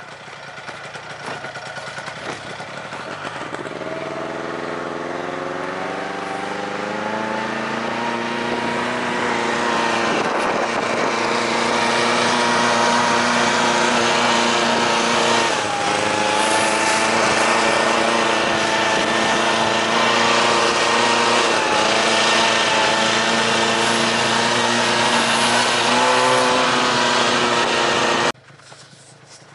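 Snowmobile engine running under way on a snowy trail, its pitch climbing as it gathers speed over the first several seconds, then holding steady with a brief dip midway. The sound cuts off suddenly near the end.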